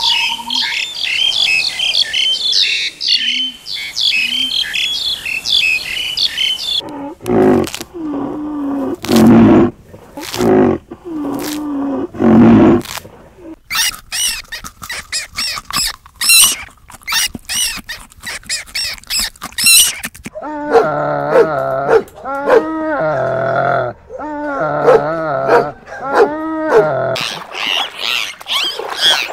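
A series of different animal calls, cut one after another: rapid high chirping for the first several seconds, then a few short low calls, then high squeaks, then a run of lower-pitched repeated calls.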